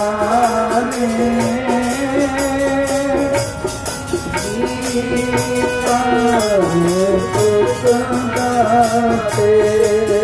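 Sikh kirtan: a man singing a devotional hymn to his own harmonium, its reeds holding sustained chords beneath the voice, with tabla keeping a steady beat. The voice swoops down in pitch about six and a half seconds in, then climbs back.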